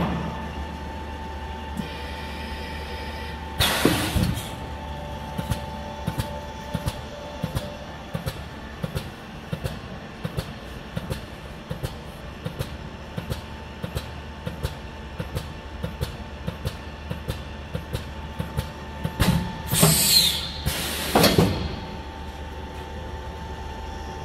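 Fox vacuum skin packaging tray sealer running a cycle: a steady hum from its vacuum pump with a constant tone. A burst of hissing air comes near the start, then regular clicking about twice a second. About 20 seconds in come two loud blasts of air.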